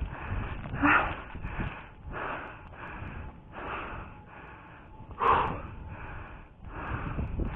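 A person breathing hard close to the microphone, with quick, even breaths in and out about every two-thirds of a second. One breath about five seconds in is louder than the rest.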